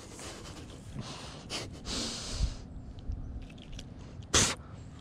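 A man's breathy exhales through a grin, then a short, sharp burst of breath near the end, like a stifled laugh.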